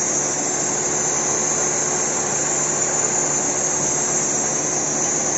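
Mitsubishi 4G63 inline-four engine idling steadily, heard in the engine bay; it is the engine with a rough idle whose cause is being sought.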